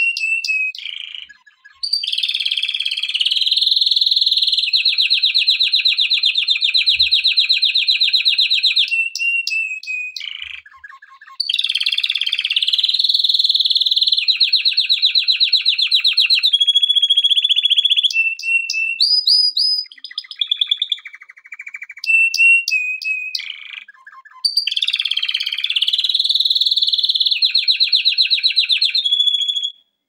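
Male domestic canary singing: three long rolling trills of fast repeated notes, each lasting several seconds, broken by short whistled notes and brief pauses.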